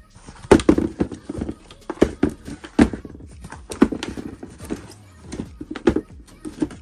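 Irregular hollow knocks and taps of molded foam-rubber adidas Adifom Climacool sneakers as they are gripped, squeezed and bumped together in the hands, about ten knocks in a few seconds.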